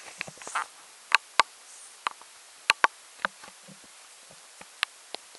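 A Jagdterrier's muzzle close to the microphone: soft rustling at the start, then a string of sharp clicks and taps, several of them in quick pairs.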